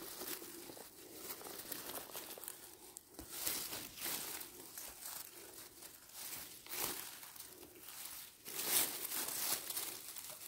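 Footsteps and movement through forest vegetation, an irregular run of short rustles and crackles.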